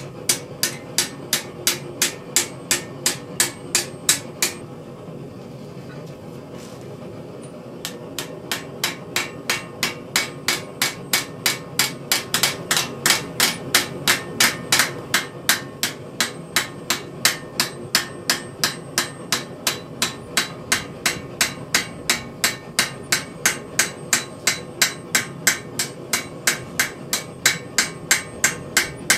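Blacksmith's hammer striking a steel acanthus leaf worked in repoussé over a stake: quick, even blows, about three a second, with a pause of about three seconds after the first four seconds, over a steady low hum.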